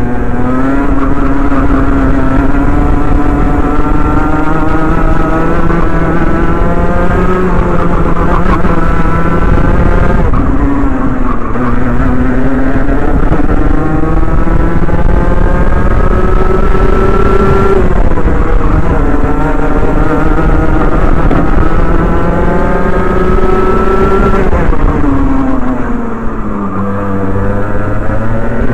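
Rotax Mini Max kart's 125cc single-cylinder two-stroke engine at racing speed, its pitch climbing steadily along the straights and falling sharply under braking for the corners, about three times. The deepest drop, for the slowest corner, comes near the end.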